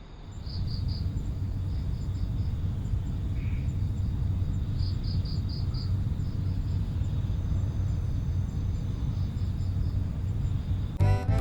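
Crickets chirping in quick pulsed trains over a steady low rumble of outdoor ambience. The sound starts abruptly, and music cuts in right at the end.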